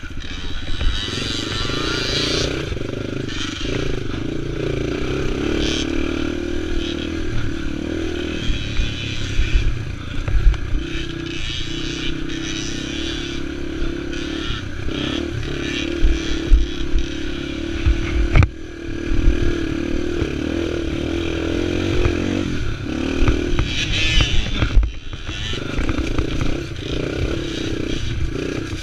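Yamaha TT-R230's single-cylinder four-stroke engine running under changing throttle, revs rising and falling as the bike rides a rough dirt trail, with thumps and clatter from the bike over bumps and one sharp knock about two-thirds of the way through.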